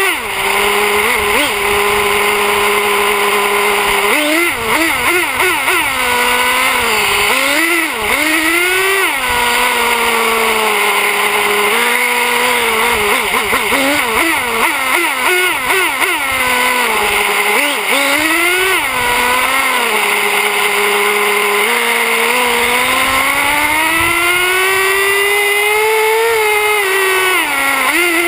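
Traxxas Slayer 4x4 RC truck's nitro engine, heard from a camera on the chassis, revving up and easing off over and over as the truck is driven, with short stretches of steady running between. Near the end the pitch climbs slowly for several seconds, then drops.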